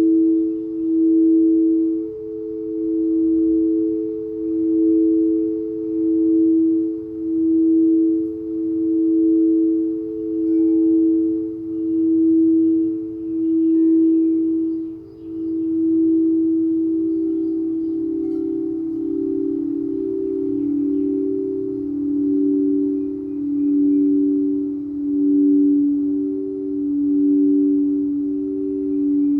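Two singing bowls sounding together as a sustained two-note drone, swelling and fading about once every second and a bit. About halfway through the sound dips briefly, and then both notes continue slightly lower in pitch.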